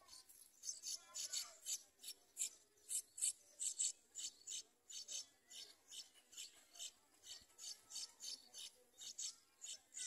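Yellow-vented bulbul nestlings begging to be fed: a rapid run of short, high, raspy calls, about three a second.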